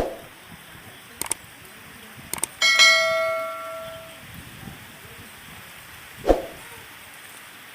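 Steady rain with a few sharp clicks, then a single ringing metallic strike, bell-like, about three seconds in that fades over a second and a half. Two dull thumps, one at the start and one about six seconds in.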